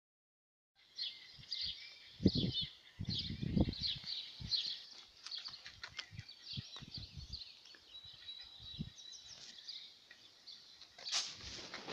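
Songbirds chirping and singing continuously, starting after about a second of silence. Short low rumbles of noise on the microphone come about two seconds in and again around three to four seconds in, with lighter ones later.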